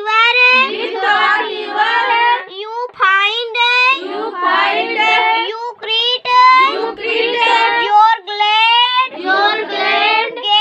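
A young girl's high voice chanting the poem's lines aloud in a sing-song recitation, holding long notes.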